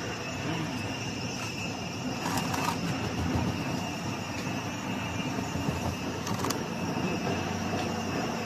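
Chili powder grinder running steadily: a dense mechanical rush with a constant high whine, and a few brief rattles about two and a half and six and a half seconds in.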